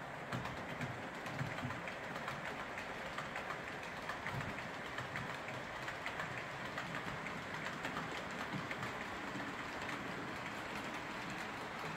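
OO gauge model trains running on the layout's track: a steady whirr with many small irregular clicks from wheels on the rails.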